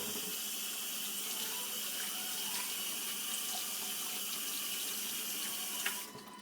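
Water running steadily from a tap into a sink for hand washing, shut off about six seconds in.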